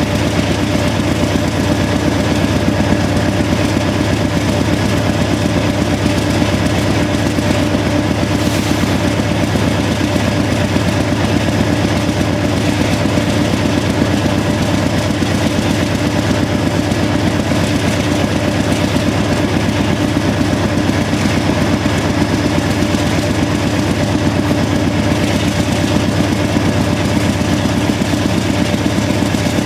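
GE AC4400CW diesel-electric locomotives, with 16-cylinder GE 7FDL diesel engines, running hard under heavy load: a loud, steady, rapid exhaust chugging from the stacks with a steady whine above it.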